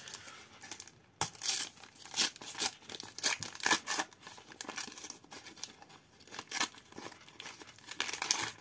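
Wrapper of a Turbo Attax Formula 1 trading-card packet being torn open and crinkled by hand, in a run of irregular rips and rustles.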